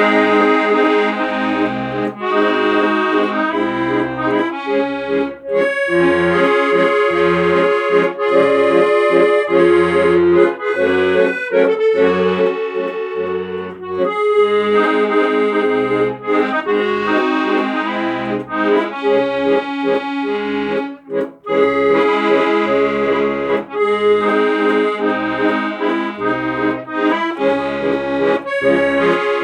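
Instrumental music: sustained chords and melody over a regular pulsing bass.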